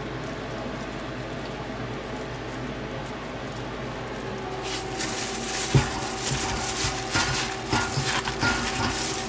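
A gloved hand pressing a battered chicken strip into seasoned flour: rough rustling and scrunching with a few soft knocks against the steel bowl, starting about halfway through. Before that there is only a low steady hum.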